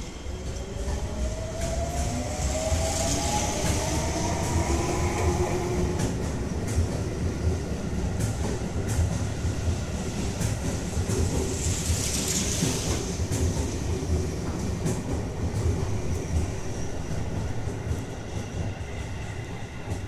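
Seibu 20000 series electric train pulling out of a station. For the first several seconds its traction motors whine in a rising pitch as it gathers speed. Then the wheels rumble and clack over the rail joints as the cars go by, easing off near the end.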